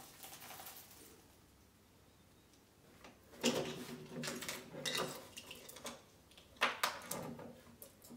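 A faint hiss in the first second as molten metal is poured into a cuttlefish-bone mould. Then come clicks, knocks and rattles of a quick-release bar clamp being loosened on a wooden workbench and the mould halves being handled, with the sharpest knocks about three and a half and seven seconds in.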